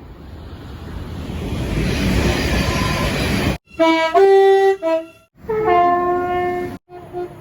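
A train rumbling closer and growing steadily louder, then, after an abrupt cut, a train air horn sounding several notes at once in a short blast and a longer blast, with a brief snatch of horn near the end.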